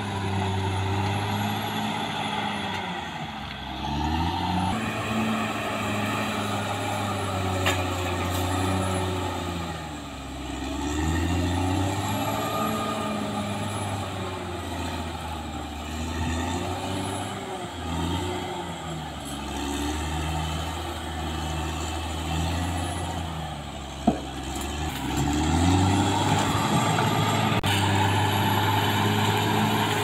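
Caterpillar D6R XL bulldozer's diesel engine working under load as the dozer pushes earth with its blade. The engine pitch rises and falls every few seconds, with a single sharp knock about 24 seconds in.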